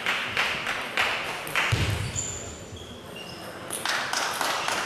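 Table tennis balls clicking off tables and bats at several tables at once, irregular light ticks echoing in a sports hall, with a low thump about two seconds in.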